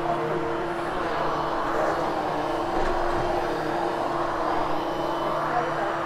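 Corded upright vacuum cleaner running steadily with its brush roll on a freshly cleaned polyester carpet, a constant motor hum and suction rush that swells slightly every few seconds as it is pushed and pulled.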